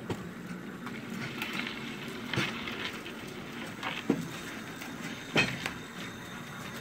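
Small battery-electric rail kart rolling along steel rails with a steady rumble, its wheels clacking four times at uneven intervals as they cross gaps at the rail joints. The loudest clack comes about five and a half seconds in.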